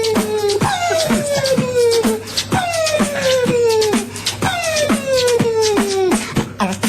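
Beatboxing: a man's mouth-made drum beat of sharp clicks and snare-like hits, with a held vocal tone that slides slowly downward over about two seconds, repeated three times.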